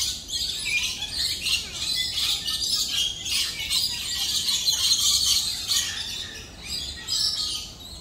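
A flock of lories and lorikeets chattering: a dense, continuous mix of high chirps that thins out near the end.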